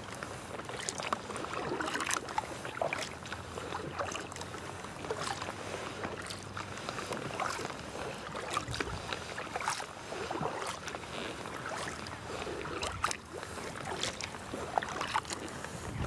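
Double-bladed kayak paddle strokes in calm lake water: irregular splashes and drips from the blades, with water washing along the hull of an inflatable kayak.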